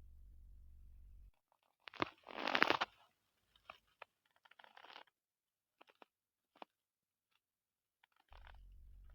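A man's stomach gurgling: one loud, bubbly gurgle lasting about a second, starting about two seconds in, then a few fainter gurgles and clicks.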